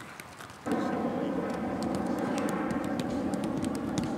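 A steady mechanical drone made of several held tones, starting suddenly less than a second in, with sharp thuds of footballs being kicked over it.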